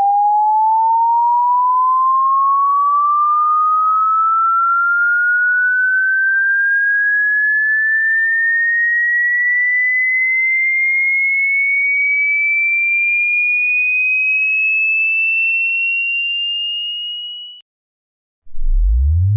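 Electronic sine-wave tone sweeping slowly upward in pitch from a mid whistle to a high whine, then fading out. After a moment of silence a new tone starts very low and begins rising.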